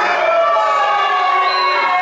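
Wrestling crowd shouting and cheering over one another, reacting to a pin attempt.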